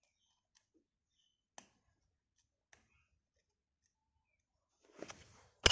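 Small clicks and handling noise from the internals of an opened Shimano XTR M970 shifter being worked by hand. There are two faint single clicks about a second apart, then a brief scuffle and one sharp, loud click near the end.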